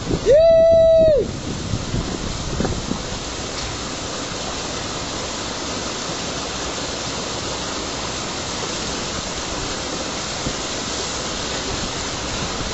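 Waterfall rushing steadily. Near the start a loud, steady tone lasts about a second, over which the water noise briefly drops out.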